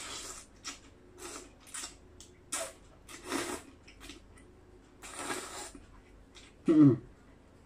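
A person slurping and sucking in rice noodles, a series of short noisy slurps several times over, then a brief loud voiced grunt from the throat near the end.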